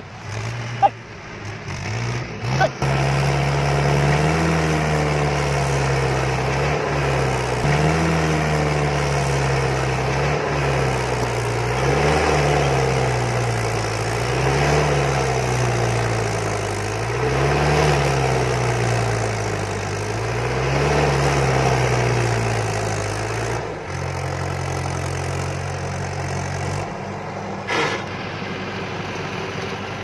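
Mahindra tractor's diesel engine pulling a trolley loaded with soil over rough ground, its engine speed rising and falling in regular swells about every three seconds, then running steadier and dropping lower near the end.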